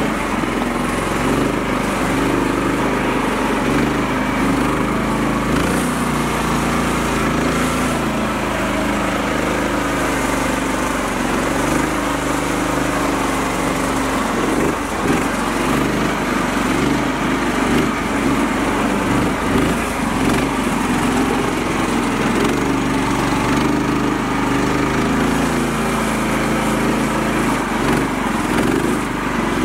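Small mini-tractor engine running steadily under load as the tractor drives through shallow floodwater, its wheels churning and splashing muddy water.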